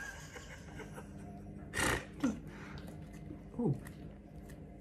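Brief, quiet laughter: a sharp puff of breath about two seconds in, then short chuckles that fall in pitch.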